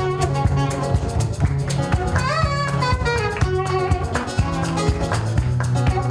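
Acoustic band music: plucked guitar over a steady bass line, with frequent percussive strokes.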